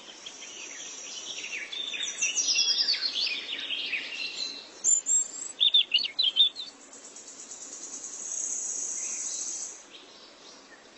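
Birds chirping and calling in quick, high, irregular chirps, with a steady high trill lasting about two seconds near the end.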